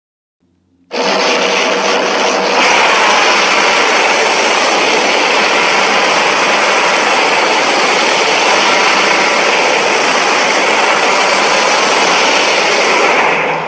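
Godzilla atomic breath sound effect: a loud, steady rushing blast that starts abruptly about a second in, grows brighter a couple of seconds later, and fades out at the end.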